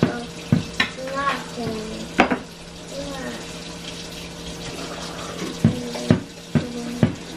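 Kitchen tap running steadily into a stainless-steel sink, with dishes and a plastic basin knocking and clattering against the sink about seven times.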